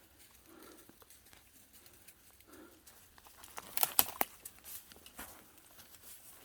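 Footsteps moving through forest leaf litter and twigs, with faint rustling and a short cluster of sharp snaps and clicks about four seconds in.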